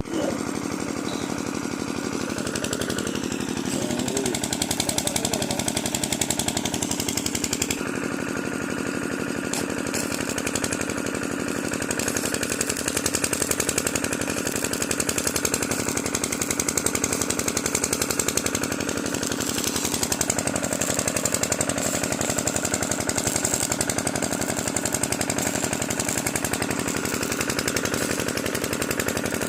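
DC arc welding: the arc crackling steadily and without a break, a dense, rapid crackle.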